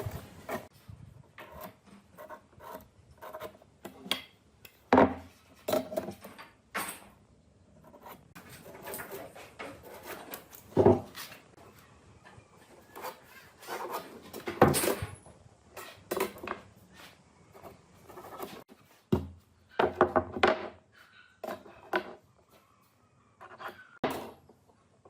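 Irregular knocks and scraping of wood being handled and worked by hand, with a few louder knocks scattered through.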